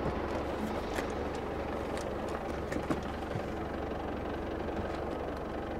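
Vehicle engine running steadily with a low rumble, with a few light clicks.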